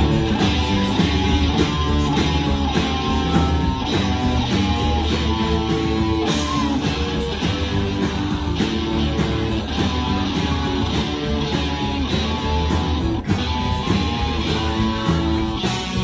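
Live rock band playing at full volume, heard from the stage: electric guitars, bass guitar, drums and keyboards.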